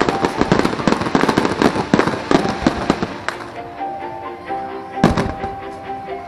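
Aerial fireworks: a rapid string of bangs and crackles for about the first three seconds, then music takes over, with one loud firework bang about five seconds in.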